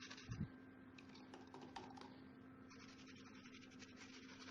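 Faint scratching of a paintbrush working paint into textured decorative stone, made of fine irregular ticks, with a soft low thump just after the start.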